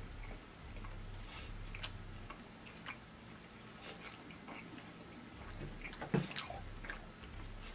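Close-miked chewing of food with soft, wet mouth clicks scattered throughout, and a louder one about six seconds in.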